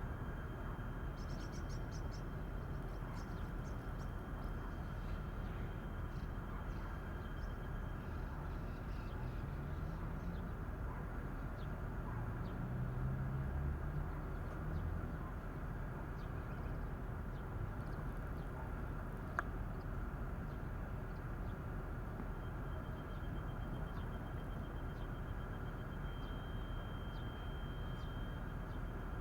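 Faint, scattered bird chirps over a steady outdoor background rumble, with a thin steady high whine that comes and goes and one sharp click about two-thirds of the way through.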